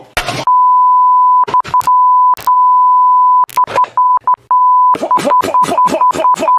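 Censor bleep: a steady 1 kHz tone, broken up again and again by short loud bursts of a man's cries, which come in a rapid run near the end, as he takes a shock from a home-made electric guitar.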